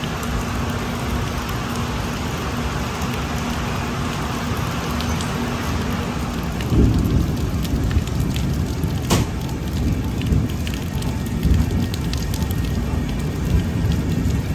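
Steady rain heard from the doorway of a moving passenger train, over the low rumble and knocking of the coach. A steady low hum drops away about six and a half seconds in, a heavier rumble takes over, and a sharp click comes about nine seconds in.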